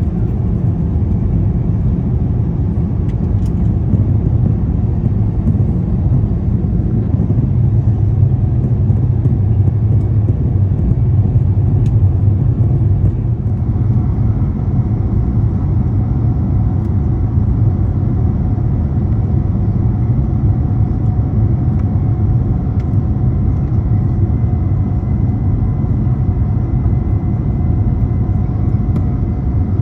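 Cabin noise of an Airbus A350-900 airliner coming in to land: a loud, steady low rumble of its Rolls-Royce Trent XWB engines and airflow. A couple of faint steady tones join in about halfway through.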